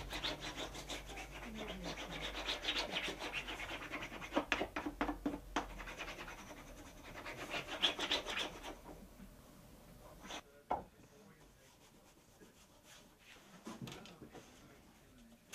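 Bookbinder's folder rubbed firmly back and forth along folded paper over a book's spine, creasing the fold: a dry scraping rub in quick repeated strokes. After about nine seconds the rubbing stops, leaving a quieter stretch with a couple of light knocks.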